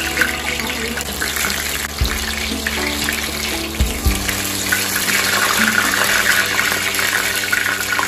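Bitter gourd leaves sizzling in hot oil in a stainless steel frying pan as more leaves are laid in, over background music.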